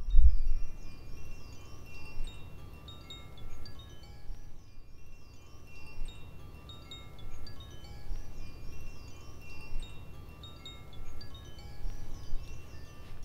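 Metal chimes tinkling: many short, high ringing notes at scattered pitches, with wavering higher tones coming back every couple of seconds, over a steady low rumble. A louder low thump sounds right at the start.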